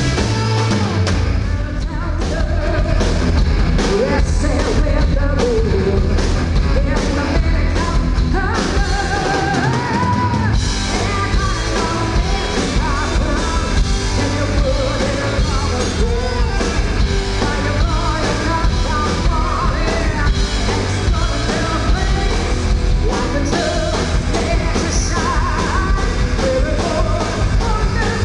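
Live rock band playing: drums and electric guitar under a woman's lead vocal, which comes in a couple of seconds in.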